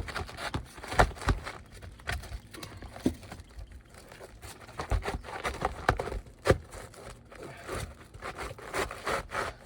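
Asphalt shingle being slid and worked into place under the course above: irregular scraping and rustling, with scattered sharp knocks.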